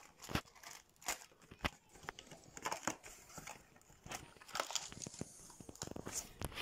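Crinkling plastic wrap and rustling cardboard as a trading-card booster display box is unwrapped and opened, with scattered sharp taps and clicks of handling.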